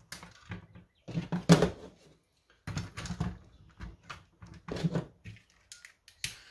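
Hand tools and hard plastic blaster parts clattering and knocking on a tabletop as a screwdriver, wire cutters and a small butane torch are picked up and handled. The knocks come irregularly and are loudest about a second and a half in, with a sharp click just before the end.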